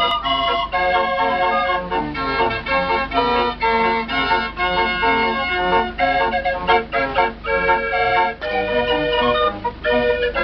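Fairground organ playing a tune, a continuous run of short pitched notes.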